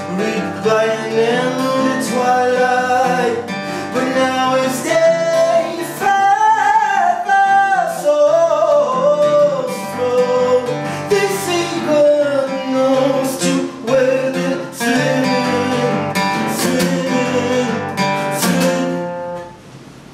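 Man singing to his own strummed acoustic guitar; the song stops near the end, leaving a faint fading tail.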